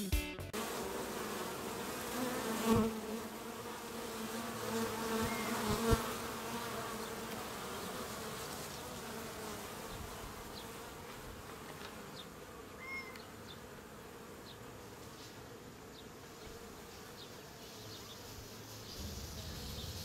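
Honeybees buzzing around a hive entrance: a steady hum that fades gradually.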